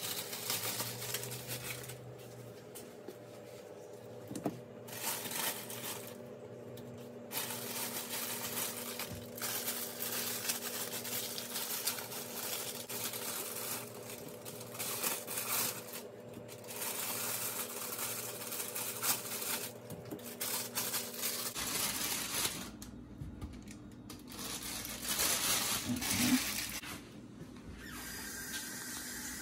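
Plastic food packaging crinkling and tearing as packaged Philly steak meat is unwrapped, with a few light knocks of handling, over a steady low hum.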